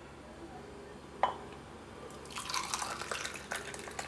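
Hot, thick turmeric milk poured from a pan into a glass mug, splashing and dripping into the glass from about halfway through. A single knock about a second in.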